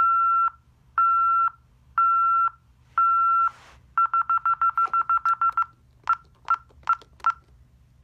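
Honeywell 6160V alarm keypad sounding its exit-delay warning: steady beeps about once a second, then a fast run of about a dozen short beeps, then four separate short key-press beeps as a code is entered and the system is disarmed.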